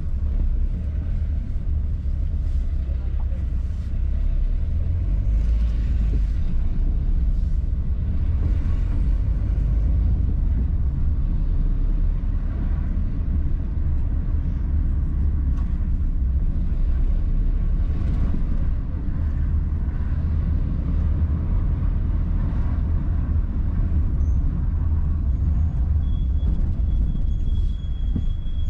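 Steady low rumble of a car driving slowly along a city street: engine and tyre noise heard from the moving car. A thin, steady high tone comes in near the end.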